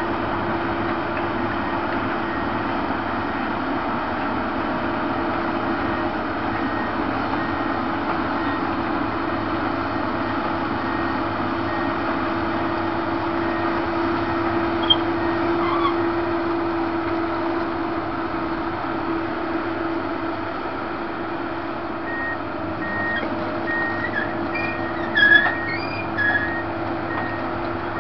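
Komatsu PC200 swamp excavator's diesel engine running steadily under a constant hum, with a faint high intermittent beep. Near the end there are a couple of short, sharp squeaks.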